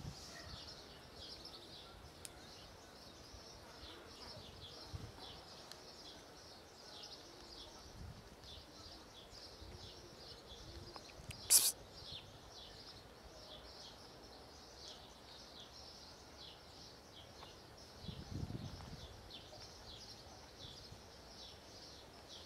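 Faint, continual chirping of small birds in the background, with one sharp click about halfway through and a brief low rumble near the end.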